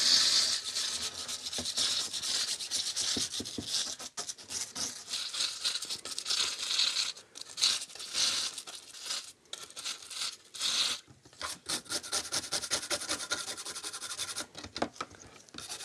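A brush scrubbing a circuit board wet with circuit board cleaner to remove battery corrosion, in quick, uneven back-and-forth strokes with short pauses.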